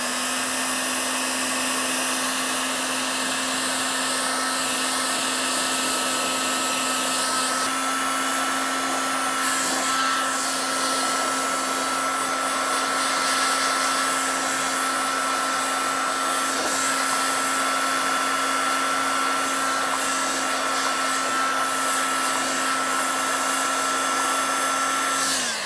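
Electric heat gun running steadily, its fan blowing hot air with a low hum and a higher whine over the rush of air, cutting off near the end. It is heating a brass wool soldering-tip cleaner to melt out the trapped solder.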